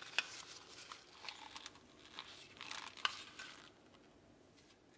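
Faint crinkling of thin plastic gloves and light plastic clicks as the parts of a plastic plunger-type mooncake press mould are handled and fitted together.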